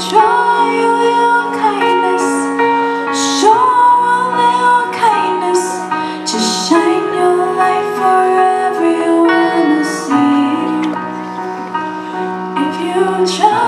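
Students singing a song in long held notes, the voice sliding between pitches, over sustained instrumental chords.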